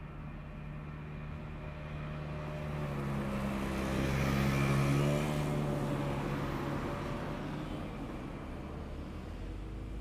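A motor vehicle passing by: an engine hum that swells to a peak about halfway through and then fades.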